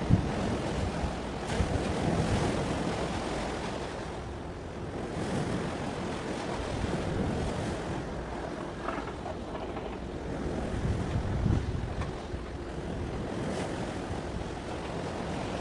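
Wind buffeting the microphone in an uneven low rumble, over the wash of waves on open sea water.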